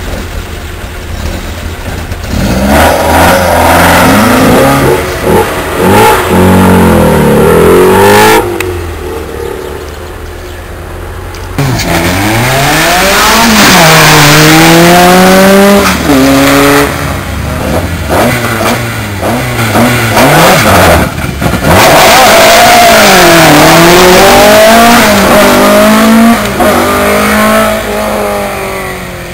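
Race car engines accelerating hard from the start, one car after another: each engine revs up in pitch and drops back briefly at every upshift, climbing through several gears. Among them are an Alfa Romeo saloon and a single-seater racing car, which gives the loudest run, about halfway through, as it passes close.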